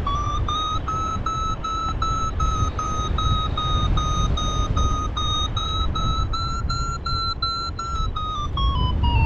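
Paragliding variometer beeping about three times a second. Its pitch holds high, then steps down near the end, the instrument's signal of a climb in rising air that then weakens. A low rush of wind noise runs underneath.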